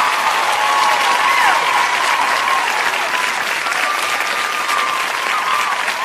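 Crowd applauding with dense, steady clapping and voices calling out over it.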